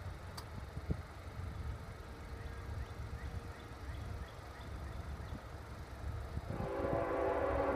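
A CSX locomotive's air horn starts sounding about two thirds of the way in, a loud chord of steady tones over a low background rumble: the train is warning as it nears the grade crossing.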